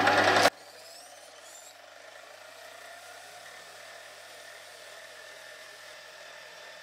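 Mini lathe running with sandpaper held against the turning brass bar to polish it. The first half second is loud, then the sound cuts off suddenly to a low, steady hiss with a faint whine.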